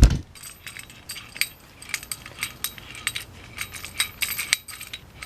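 A thump, then a run of light metallic clicks and clinks as a new Yost 3-inch table vise is handled, its metal parts knocking and rattling.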